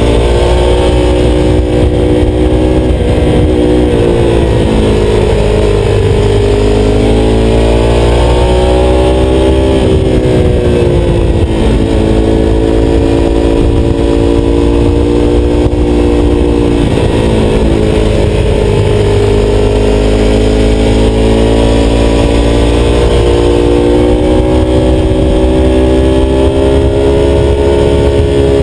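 Ducati Testastretta L-twin engine pulling under a rider on the move, its note falling and climbing several times with throttle and gear changes. A steady low rush of wind and road noise runs underneath.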